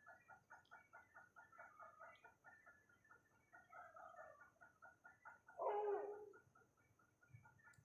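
Birds calling: a fast run of short repeated chirping notes, with one louder, longer call a little over halfway through.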